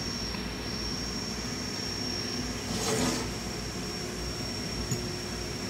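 Steady low room hum with a faint constant high whine, with a soft brushing rustle about three seconds in and a light tick near the end as small brass engine parts are handled over a cloth rag.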